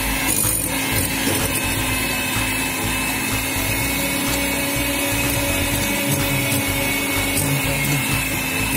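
Electric mixer running steadily, beating cooked choux pastry dough to cool it before the eggs are added.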